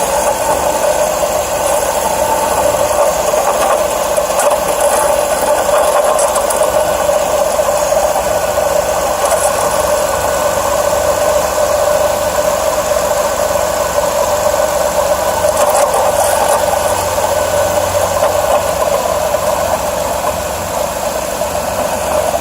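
Pontiac engine idling with a steady rattling chatter from the engine bay, a noise the owner suspects comes from the serpentine belt tensioner or idler pulley.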